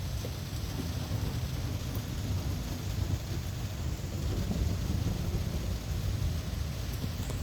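Steady rain hiss under a low, rolling rumble of thunder during a thunderstorm.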